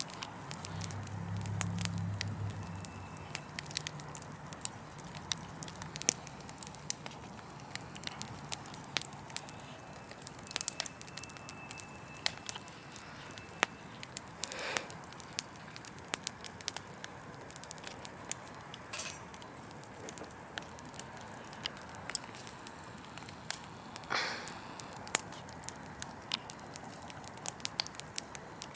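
Wood fire crackling, with many small sharp pops over a steady hiss and two louder pops about halfway and near the end. A low hum sounds under it for the first few seconds.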